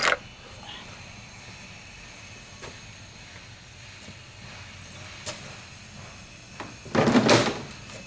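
Engine parts being handled on a workbench: a few faint taps, then a short, loud scraping clatter about seven seconds in.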